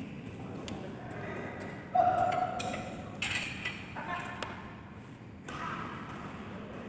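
Badminton hall between rallies: indistinct voices and scattered sharp taps and knocks echoing in the large hall, the loudest a short pitched sound starting abruptly about two seconds in.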